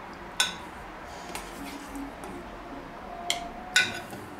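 A metal serving spoon clinks three times against an enamel pot and a ceramic plate as bread dumplings are lifted out and set down: once about half a second in and twice close together near the end.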